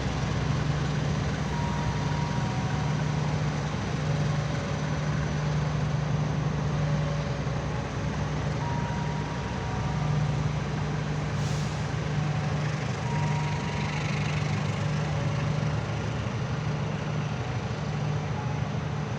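Diesel locomotive engine running steadily at idle with a low, even hum. Faint short beeps come and go irregularly over it.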